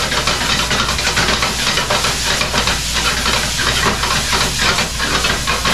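Chicken rice frying in a pan over a high gas flame: a steady loud sizzle, with rapid scraping and tapping as it is stirred and tossed in the pan.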